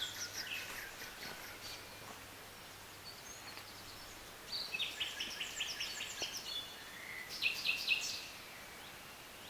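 Wild songbirds singing outdoors: phrases of quick, repeated high notes in three bursts, about a second and a half in, from about four and a half seconds, and again near the eight-second mark. The birds are taken for reed warblers, or could even be a nightingale.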